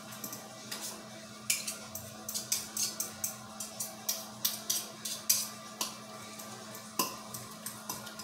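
Metal spoon clinking and scraping against a glass mixing bowl while mashing and stirring deviled-egg yolk filling. A quick run of clinks, about three a second, starts a second and a half in, then a few scattered clinks follow.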